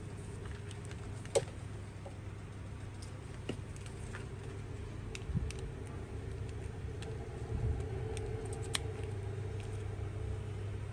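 Scattered light clicks and taps of small tools and parts, the sharpest about a second and a half in, over a steady low hum.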